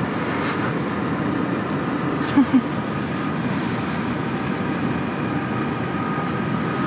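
A steady low mechanical hum with a faint thin whine held above it, and two short low knocks close together about two and a half seconds in.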